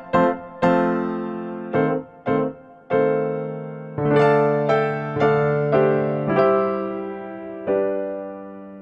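Background music: a simple keyboard melody in piano tone, single notes struck one after another, each fading. The last note, struck near the end, is left ringing.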